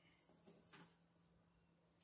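Near silence: a couple of faint rustles and scrapes of white plastic-sheathed electrical cable being handled and pulled along the ceiling joists, over a faint steady hum.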